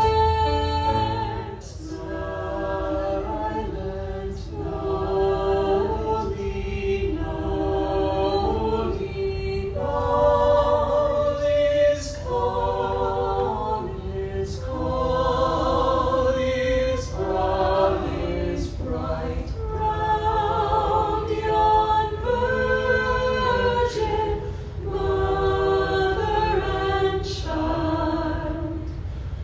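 Background music: a choir singing in harmony, holding chords that change every second or two.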